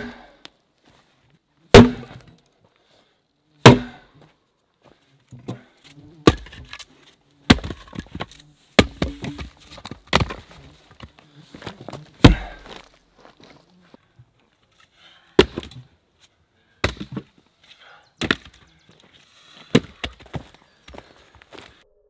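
Axe blows splitting firewood rounds held inside a tyre: sharp chops and cracks of splitting wood. The three loudest come about two seconds apart at the start, then a run of lighter knocks and clatter, then more single strikes every second or so.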